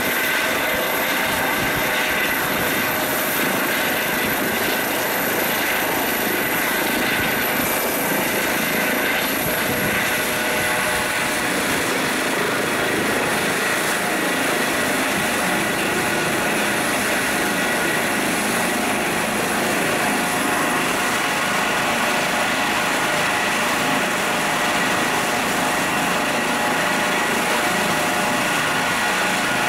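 Eurocopter EC135 twin-turbine helicopter running on the ground with its rotor turning: a steady turbine whine over rotor noise. The whine drops slightly lower about ten seconds in.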